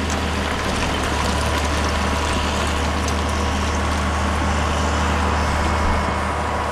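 Caterpillar motor grader's diesel engine running steadily under load, with a steady hiss of dirt and stones churned by its blade and ripper; it cuts off suddenly at the very end.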